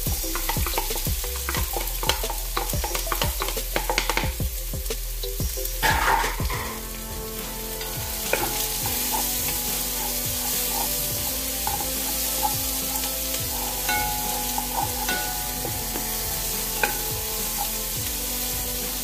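Chicken pieces frying in a hot pot: a run of knocks and clatter in the first few seconds as they are tipped in and pushed about with a wooden spoon, then a steady sizzle as they are stirred.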